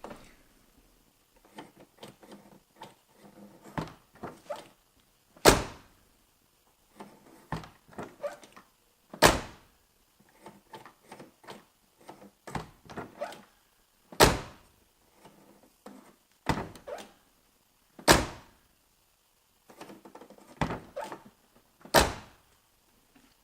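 Car door being opened and shut over and over: handle and latch clicks, then about six solid thunks as the door closes. The door handles are the ones due for replacement.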